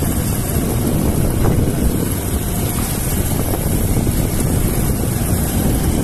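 Motorcycle running along at a steady pace, heard as a loud, even rush of wind buffeting the microphone of a phone held by the pillion passenger, with the engine running underneath.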